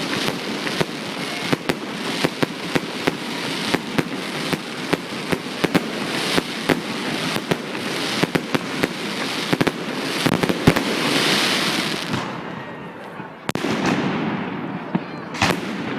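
Fireworks going off: a dense run of sharp bangs and crackles over a continuous hiss, thinning out about twelve seconds in, with a few more bangs near the end.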